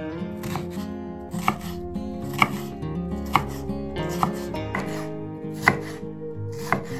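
Chef's knife chopping red bell pepper on a bamboo cutting board: crisp knocks of the blade through the pepper onto the wood, roughly once a second, over background music.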